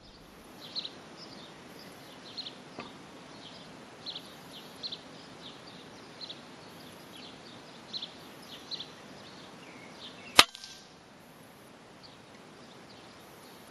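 Sparrows chirping in short, repeated calls, then about ten seconds in a single sharp crack from an Edgun Matador PCP air rifle firing, by far the loudest sound.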